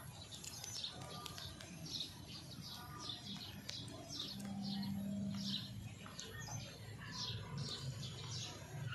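Small birds chirping in the background: a steady run of short, high chirps that sweep downward, several each second. A brief low hum comes in near the middle.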